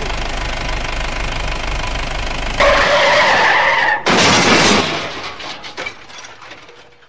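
Dubbed car-engine sound effect running steadily, then a tyre screech about two and a half seconds in, then a loud crash and splash about four seconds in that fades away, for the toy pickup overturning into a water-filled pit.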